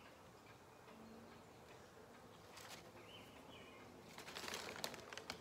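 Quiet room, then a man sniffing deeply at the open top of a glass jar candle about four seconds in, one long breathy sniff lasting around a second. A faint short high chirp comes a little before it.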